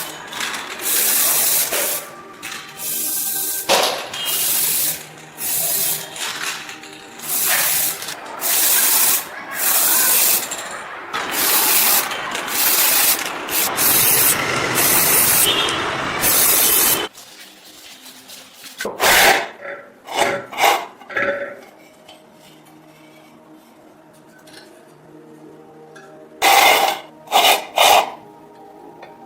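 Repeated hissing bursts about a second long, from spraying or abrasive work on a rusted metal lamp, for about seventeen seconds. Then it goes quieter, with a few sharp clicks of metal parts being handled.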